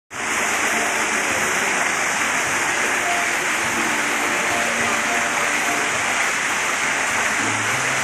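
Small waterfall: thin streams of water falling from a rock ledge and splashing into a shallow pool, a steady even rush and splatter.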